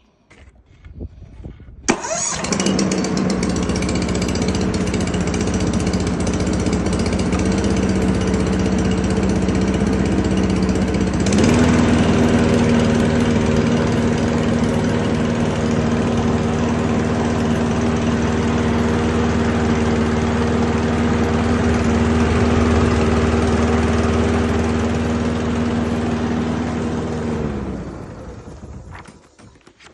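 Hyundai HDM 560S petrol lawn mower's 196 cc single-cylinder engine starting on its electric starter about two seconds in, catching at once and running steadily. About eleven seconds in it steps up to a higher speed, then near the end it shuts off and runs down.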